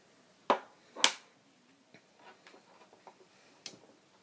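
Lipstick tubes and caps being handled and put down: two sharp clicks about half a second apart, a few faint ticks, and one more click near the end.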